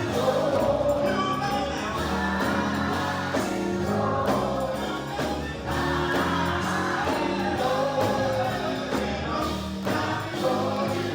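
Gospel choir singing with musical backing, sung lines over a steady low accompaniment.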